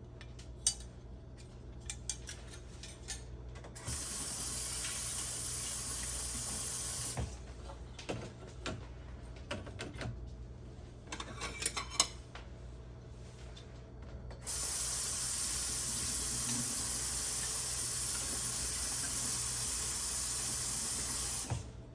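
Kitchen tap running twice, first for about three seconds and then for about seven, as spiralizer blades are rinsed under it. Between the two runs come light clinks and knocks of the parts being handled.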